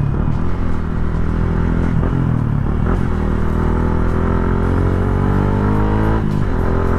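Yamaha Sniper 150's single-cylinder four-stroke engine pulling under acceleration on the road, its pitch rising steadily from about three seconds in, with a brief break about six seconds in.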